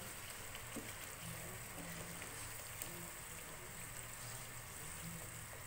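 Kofta curry with yogurt stirred in, sizzling faintly in a wok as a wooden spoon stirs it gently, with a few light taps of the spoon.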